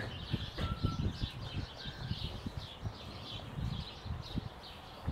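Small birds chirping in a rapid, continuous run of short high notes, with irregular low thumps and rumble underneath.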